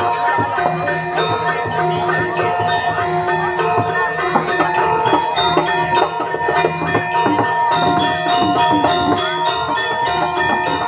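Balinese gamelan playing dance music, bronze gongs and metallophones ringing over a fast, steady pulse of cymbals, growing busier near the end.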